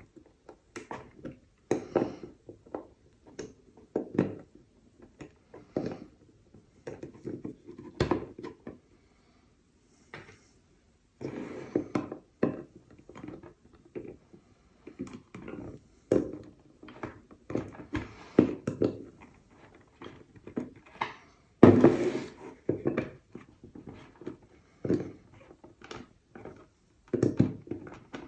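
Hand tools and small detector parts being handled during disassembly: irregular clicks, taps and scrapes of metal and plastic, with a pause of a couple of seconds about ten seconds in.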